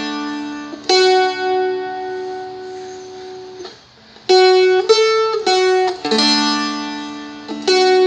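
Seagull Merlin strumstick-style dulcimer played as a slow melodic phrase of plucked notes that ring on. The phrase is played once, stops briefly a little before four seconds in, and is then played again.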